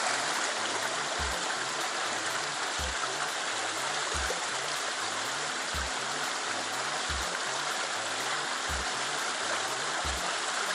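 Fast-flowing stream water rushing and foaming through a narrow rock channel, a steady hiss of small rapids. A soft low thump sounds about every second and a half under it.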